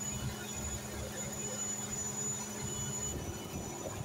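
Steady drone of a mechanised fishing boat's engine running, with a low hum whose tone shifts about three seconds in.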